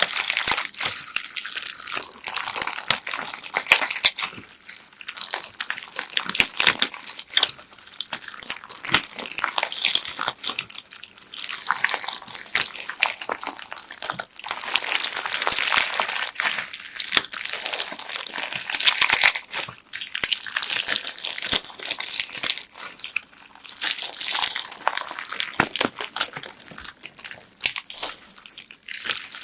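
Bead-filled slime being squeezed, pressed and stretched by hand: a dense, continuous crackle of beads clicking against each other in the slime, swelling and easing every few seconds.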